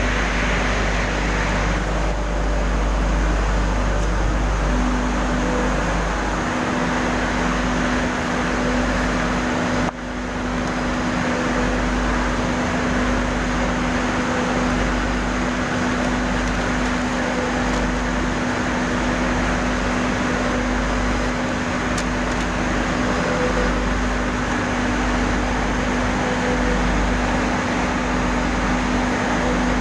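Industrial furnace running with a loud, steady roar and low rumble. A steady hum joins in about five seconds in, and there is a brief dip in level near ten seconds.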